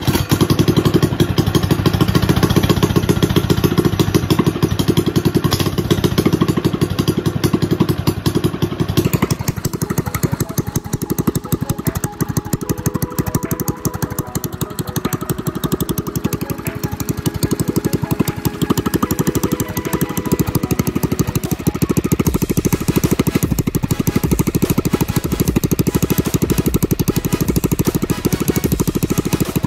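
Predator 212cc single-cylinder four-stroke go-kart engine running steadily at a fast, even beat through a short open exhaust pipe. It is loud throughout.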